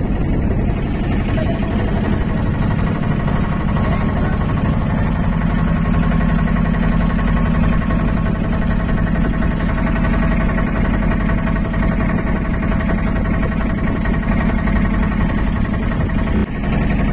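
Passenger motorboat's engine running steadily at cruising speed, with a constant low drone and the rush of water and wind under it.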